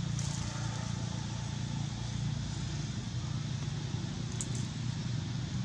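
Steady low hum of a running engine, with two brief high crackles, one just after the start and one near the end.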